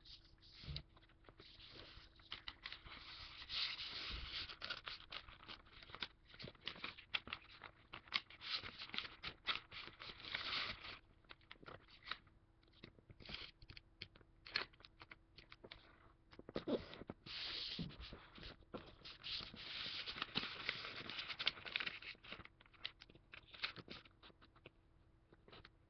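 A sheet of paper being folded by hand: irregular rustling and scraping as fingers press and run along the folds to sharpen the creases, with short crinkly clicks in between.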